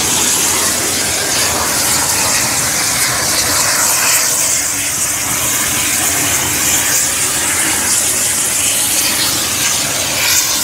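Mil Mi-8-family transport helicopter running on the ground with its main rotor turning: a steady, loud rush of turbine and rotor noise topped by a high hiss.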